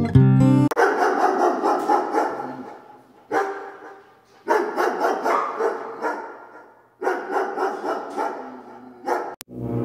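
Dogs barking rapidly in four runs that each fade away, after a brief tail of guitar music at the start.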